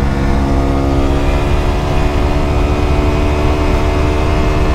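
KTM Duke 125's single-cylinder four-stroke engine pulling under gentle acceleration through a Mivv GP Pro aftermarket exhaust, its pitch rising slowly and steadily, with wind rushing on the microphone.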